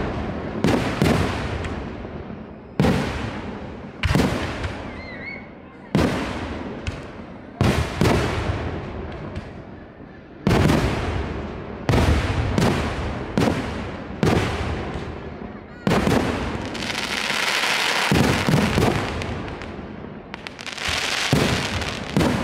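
Aerial fireworks shells bursting overhead, a sharp bang every second or so, each one trailing off in a long echoing decay. About three-quarters of the way through, and again near the end, a long hiss rises over the bangs.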